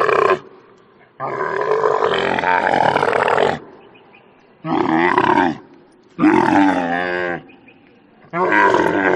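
A large animal calling again and again: loud, drawn-out, pitched calls, each a second or two long with short pauses between them.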